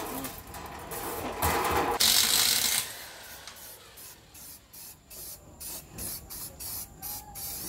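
Aerosol spray-paint can spraying: a loud hiss about two seconds in, lasting under a second, then a run of short spurts, about two a second.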